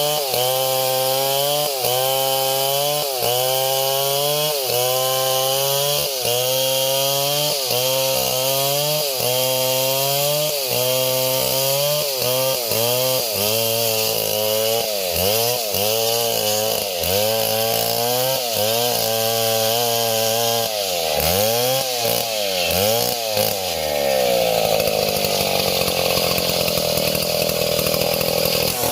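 Small chainsaw engine running, its pitch dipping and recovering about once a second, then swinging quickly up and down and settling higher near the end.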